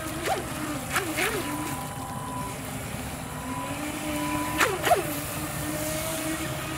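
Toy-grade RC jet boat's small electric motor and water-jet pump whining steadily, the pitch wavering up and down as the throttle changes. A few short sharp sounds cut in about a second in and twice near five seconds in.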